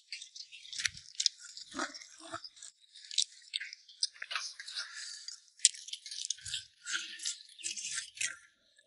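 Eating sounds heard close up: chewing and crunching, with many irregular quick clicks and light clatters of tableware.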